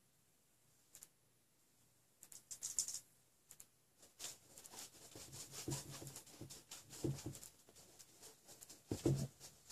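Faint scratching and dabbing of a paintbrush on canvas in short strokes, sparse at first and busier in the second half. A few low thumps come in among the strokes, the loudest about nine seconds in.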